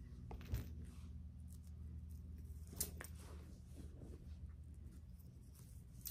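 Faint clicks and rustles of small hair accessories being handled and threaded onto braids by hand, with two sharper clicks, about half a second in and near three seconds in, over a low steady hum.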